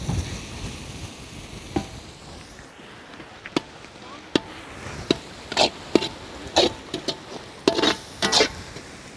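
Perforated steel ladle clinking and scraping against an iron kadai while onions and spice powder are stirred, a sharp knock every second or so from about three and a half seconds in.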